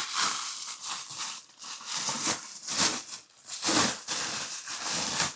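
Packaging crinkling and rustling in irregular bursts as a toilet wax ring is handled and unwrapped.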